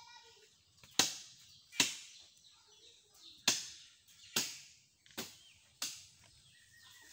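A blade chopping into a jackfruit tree's branches while pruning: six sharp strikes at uneven intervals, roughly a second apart.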